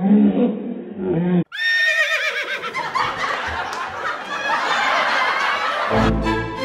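A woman's high-pitched, shrieking laughter, after a short added sound effect cuts off about a second and a half in. Music comes in near the end.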